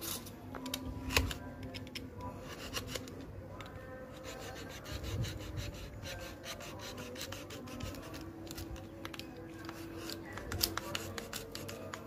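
A cutter knife shaving and scraping along a wooden strip in many short, irregular strokes, over background music.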